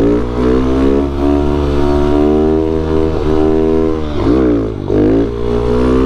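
Honda CRF110 pit bike's small single-cylinder four-stroke engine running under throttle while riding, its revs climbing and falling back several times as the throttle is worked, with a short easing-off a little before the end.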